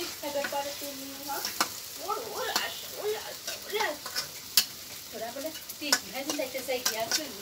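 Flat spatula stirring chicken and potato curry in a black metal karahi, with sharp irregular clicks and scrapes of the spatula against the pan over a soft sizzle of the cooking gravy.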